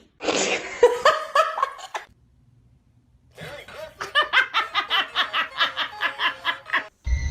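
A person laughing hard in two bouts: a short burst, a brief pause, then a long run of rhythmic 'ha-ha' pulses, about four a second.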